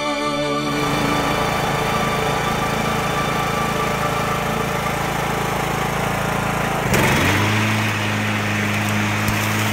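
Engine of a Craftsman riding lawn tractor running steadily. About seven seconds in, its note shifts and briefly gets louder, then settles into a steady hum.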